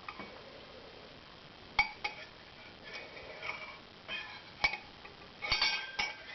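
A metal tablespoon clinking against glassware while a spoonful of Borjomi mineral water is measured out. The clinks are sharp and irregular, each with a short ringing, and they crowd together near the end.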